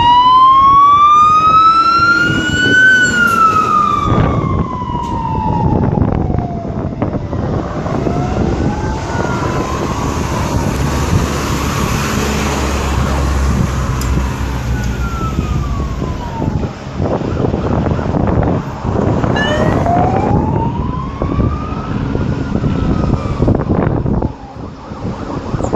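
Fire engine siren wailing, its pitch sweeping slowly up and down again and again, over the low rumble of a truck engine and passing traffic.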